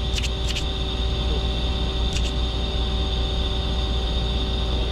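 Steady low machine-shop hum with a few faint steady whining tones over it, and a few short clicks near the start and again about two seconds in.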